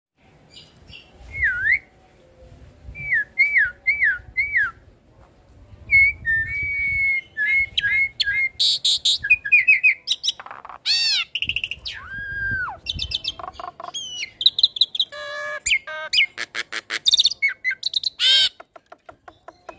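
Hybrid starling (Asian pied starling × Nias hill myna) singing a varied song. It opens with a run of down-slurred whistles repeated several times, then moves through mixed whistles, harsh buzzy notes, a rising-and-falling whistle and rapid trills.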